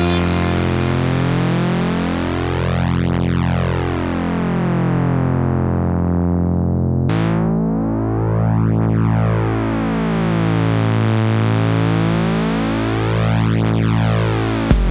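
Electronic music without drums: a sustained synthesizer drone slowly swept by a flanger-like effect. Its low note changes about halfway through.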